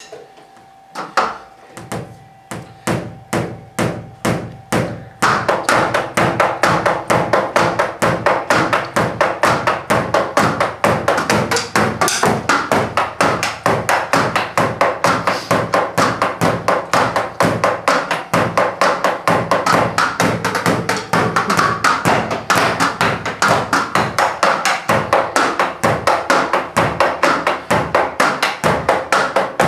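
Drumsticks striking the mesh pads and rubber cymbal pads of an electronic drum kit, heard only as dry taps and thuds because the kit's drum sounds go to headphones. A few separate hits about every half second, then from about five seconds in a fast, steady stream of playing, with the laser light projector's cooling fan humming faintly under the first hits.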